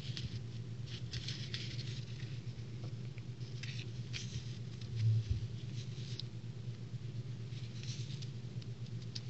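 A paper sticker strip rustles and crinkles softly as fingers handle it, in short scattered rustles over a steady low hum. There is a dull bump about five seconds in.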